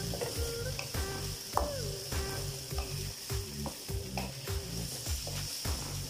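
Julienned carrots and onions sizzling in oil in a steel wok, with the steady hiss of frying broken by short scrapes and taps as a wooden spatula stirs them.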